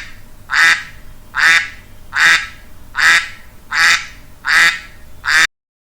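A duck quacking: single loud quacks repeated evenly, about one every 0.8 seconds, seven in a row before they stop near the end.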